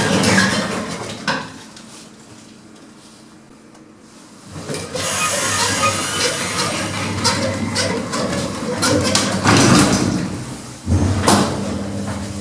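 Lift doors sliding and clunking, with clicks and knocks from the lift; a thump about eleven seconds in, then a steady low hum starts.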